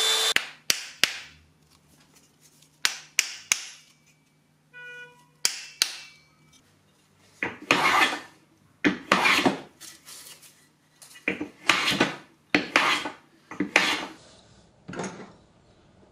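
Small hand plane taking a run of about ten quick shaving strokes along a maple handle piece, shaping a slight taper. Before the planing come a few sharp clicks and knocks of tools being handled and a brief ringing tone.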